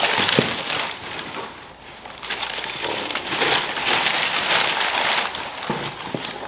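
Crumpled brown kraft packing paper rustling and crackling as it is pulled out of a cardboard box. It comes in two long stretches with a short lull about two seconds in.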